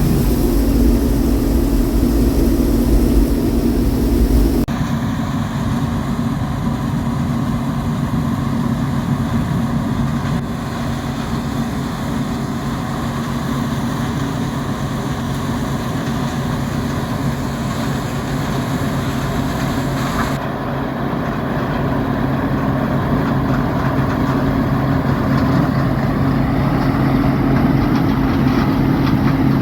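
Heavy farm machinery engine running steadily, its sound changing abruptly about five seconds in and again about twenty seconds in.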